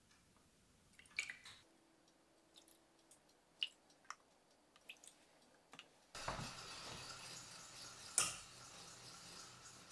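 Milk poured from a bottle into a metal ladle over a stainless steel pot, with a few small clinks and drips. About six seconds in a steady hiss comes in, and a sharp clink of kitchenware about eight seconds in is the loudest sound.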